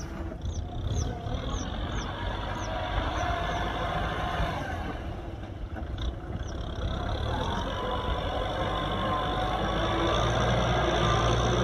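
Kubota M6040SU tractor's four-cylinder diesel engine running steadily, its note rising and growing louder past the middle.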